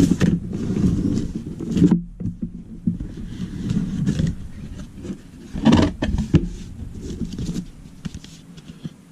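A cardboard graphics-card box being opened and its packaging handled: uneven rustling with a few sharp knocks and scrapes.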